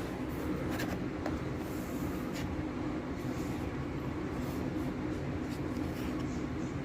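A steady low hum, with a few light clicks as small parts inside an opened laptop are handled.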